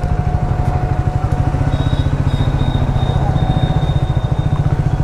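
Triumph Speed 400's single-cylinder engine running with a steady, even beat.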